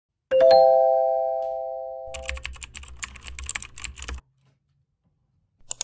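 A bright chord of three notes rings out and dies away over about two seconds, then about two seconds of rapid sharp clicking and handling knocks as a camera is worked by hand, with two more clicks near the end.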